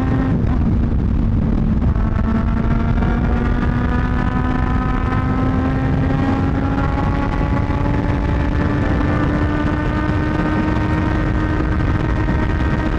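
Aprilia Tuono V4 motorcycle's V4 engine pulling hard in one gear, its note climbing slowly and evenly, with wind noise underneath.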